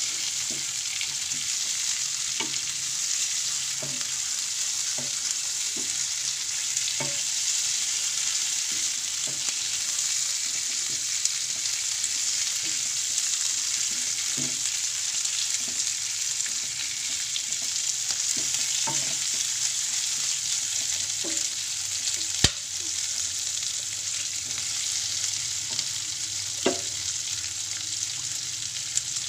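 Chicken pieces sizzling steadily in oil and spice paste in a frying pan, while a spatula stirs them, scraping and knocking against the pan every second or two. A sharp click about three-quarters of the way in, and another knock near the end.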